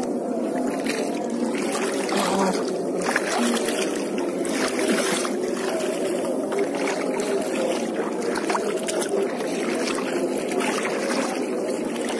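Shallow seawater sloshing and splashing around wading legs, a steady wash of water with small splashes scattered through it.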